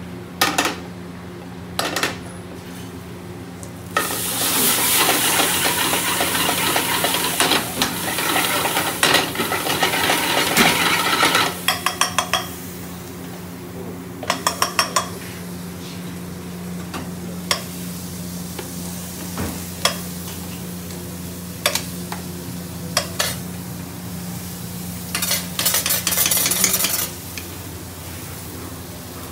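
Food sizzling hard in hot oil in a metal frying pan for several seconds. Then a spoon clinks and scrapes against the pans in quick runs of taps, over a steady low hum.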